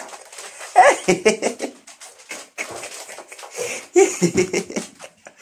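A man laughing and letting out short vocal exclamations, with a rising whoop about a second in and another outburst around four seconds in.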